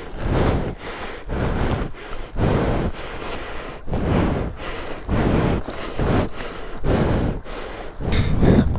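A man breathing hard and fast, about one loud breath a second, from the strain of hauling a fallen motorcycle up out of shallow water.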